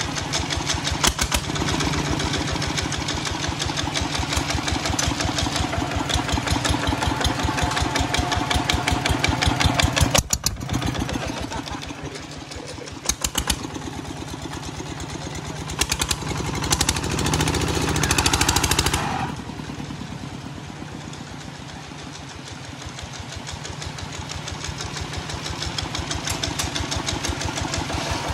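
Kubota ZT155 single-cylinder diesel on a walking tractor running with an even, rapid chugging. Its speed swells and falls back several times: it runs hard a little past halfway, drops suddenly to a low, slow run, then builds up again near the end.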